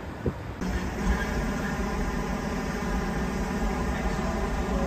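A steady mechanical hum made of several even tones over a low rumble, starting abruptly about half a second in after a quieter moment with a single click.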